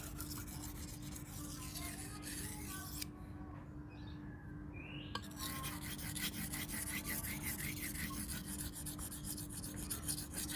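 Knife blade stroked back and forth on a Payakumbuh natural whetstone of about 1000 grit: a run of quick scraping rubs that eases off for a couple of seconds in the middle, then picks up again.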